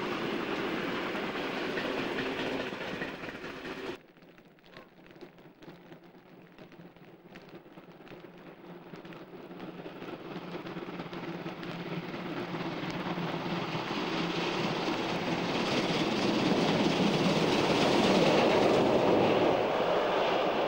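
A train sound cuts off abruptly about four seconds in. Then DB class 23 steam locomotive 23 105 works hard under full steam through the tunnel: faint at first, its exhaust pounding grows steadily louder as it comes out of the tunnel and is loudest near the end.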